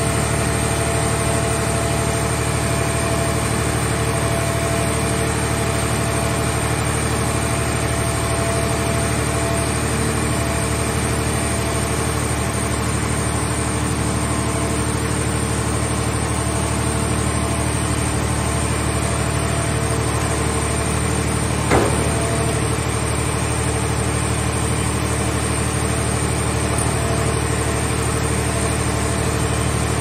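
Mobile car baler's engine and hydraulic power unit running steadily while its grab arm works. A single sharp metal clank comes about two-thirds of the way through.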